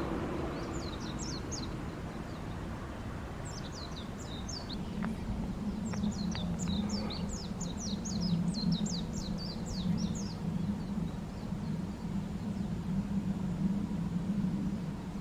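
Small birds chirping in quick runs of high, down-sweeping notes, the longest run about six to ten seconds in, over a steady low engine drone from a vessel in the harbour that grows stronger about four seconds in.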